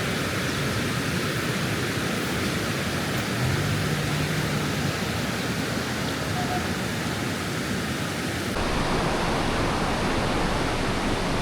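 Steady rush of fast-flowing river water, an even roar that shifts slightly about eight and a half seconds in.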